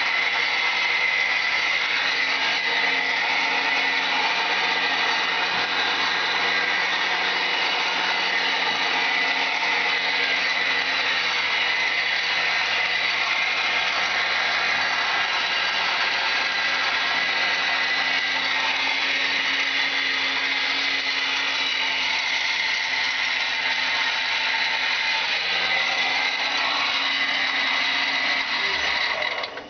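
Homemade metal lathe running steadily under motor power, with a constant high whine over a lower hum; it is switched off and stops just before the end.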